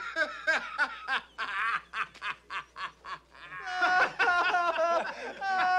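A man laughing in short, quick pulses, about four a second; about three and a half seconds in, a group of men breaks into louder laughter together.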